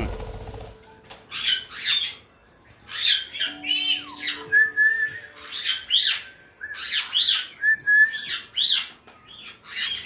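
White-bellied caiques giving a run of short, harsh squawks, with a few brief whistled notes among them. A short rush of wing flapping comes at the very start.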